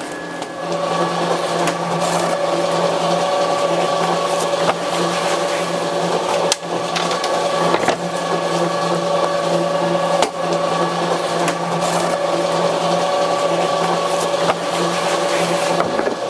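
Motor-driven clay conveyor belt of a roof-tile press running with a steady mechanical hum that comes up about half a second in. Occasional sharp knocks sound over it every few seconds.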